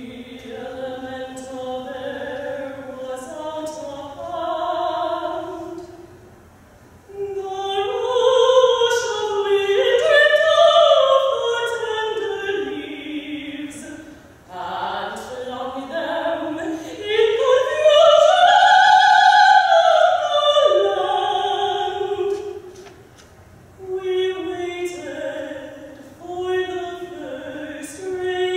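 A female classical singer sings slow, sustained phrases in an operatic style, pausing briefly between them. The loudest phrase, a bit past halfway, climbs to a high held note and falls back.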